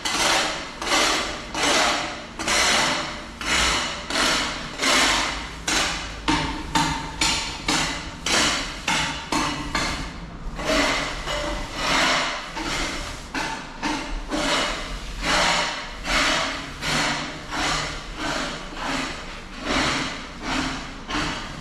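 Rhythmic hand-tool strokes on a building surface, about one and a half a second, with a short break about ten seconds in.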